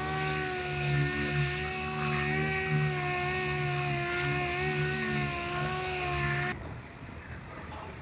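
Dual-action orbital sander running steadily on body filler on a car's quarter panel: a high whine over a hiss, cutting off suddenly about six and a half seconds in.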